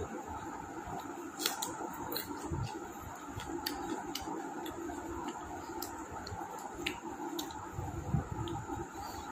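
Scattered small clicks and squishy eating sounds of someone eating a meal, over the steady hum of an electric fan.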